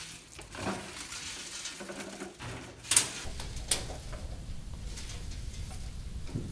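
Knocks and clatter from a metal cupboard being opened and things handled inside it, the loudest knock about three seconds in. A low steady hum comes in about two and a half seconds in.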